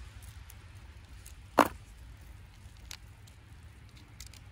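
Plastic action-figure parts handled as a chest piece is pressed on: one sharp click about a second and a half in, then a few faint ticks.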